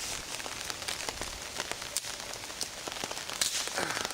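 Rain pattering on a tarp overhead: a steady hiss thick with the small taps of drops. One louder tap or knock comes about three and a half seconds in.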